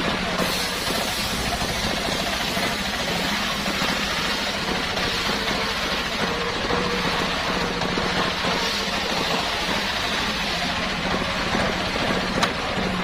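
Homemade circular sawmill running steadily, a constant dense mechanical noise with a low steady hum. A single sharp click near the end.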